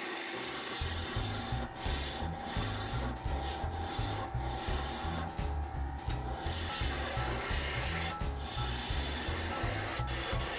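Spindle roughing gouge cutting a spinning wooden sleeve on a wood lathe: continuous rough scraping of the cut, broken by a few brief gaps as the gouge lifts off the wood.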